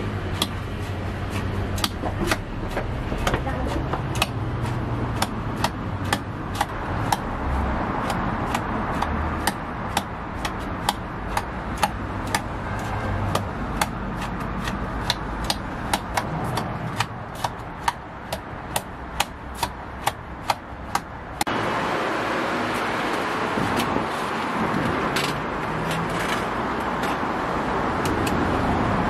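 Metal chopsticks clinking against the inside of a stainless steel pitcher, about two or three strikes a second, as eggs and shredded cabbage are beaten together. About two-thirds of the way through, the clinking gives way to a steady hiss of street background with only a few clicks.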